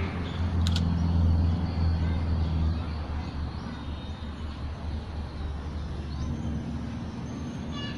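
Low hum of a motor vehicle engine, loudest in the first couple of seconds and fading away after about three seconds. A single sharp click about a second in.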